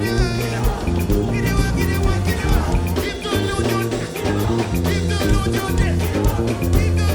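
Upbeat praise music from a band with a stepping bass line, drums keeping a steady beat, and voices singing.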